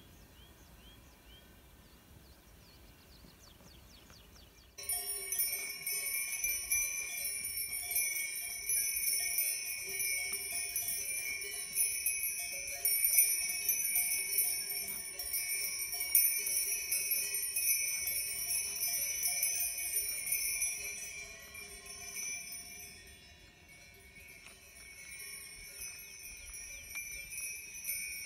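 Many cowbells of different pitches clanking and ringing together on a herd of moving cows. It starts suddenly about five seconds in and thins out a few seconds before the end.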